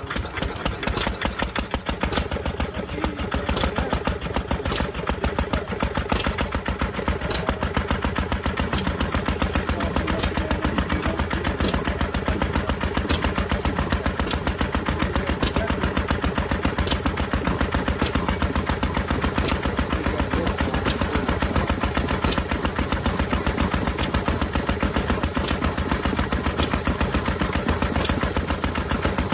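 Antique stationary engine running at a steady, rapid beat, belt-driving an air compressor that pumps up an air tank.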